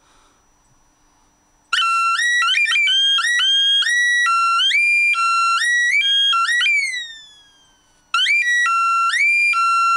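Homemade early-1970s transistor doorbell sounding through its loudspeaker: three free-running astable multivibrators, one at audio frequency with its mark-space ratio set by the other two, give a loud electronic tone that jumps and slides between pitches in an irregular pattern. It starts about two seconds in, dies away with a falling pitch around seven seconds, and starts again about eight seconds in.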